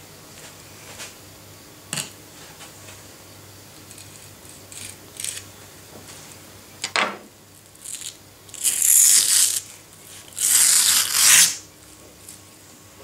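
Skin being torn by hand from a raw witch flounder on a plastic cutting board: a few light clicks and a short scrape, then two long tearing noises of about a second each near the end.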